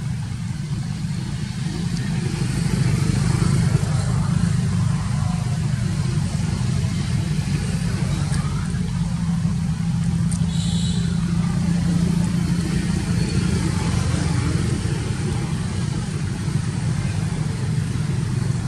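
A steady low motor drone, with a brief high chirp about ten and a half seconds in.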